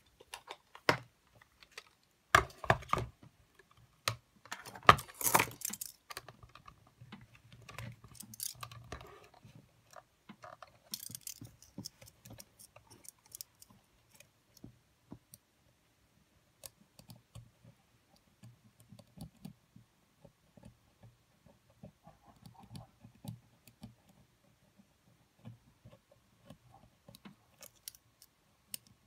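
Small metal tools clicking, tapping and scraping against the parts of a Sony EX999 Walkman's cassette mechanism as it is cleaned. A run of louder scrapes and clicks fills the first dozen seconds, then only sparse faint ticks.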